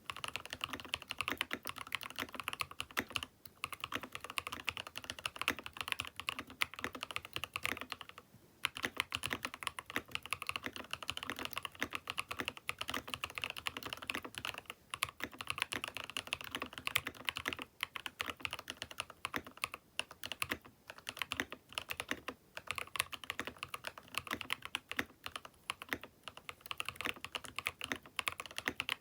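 Fast continuous typing on a Keychron K6 Pro mechanical keyboard fitted with Jwick Vertex V1 switches, a dense run of keystroke clacks with brief pauses about 3 and 8 seconds in.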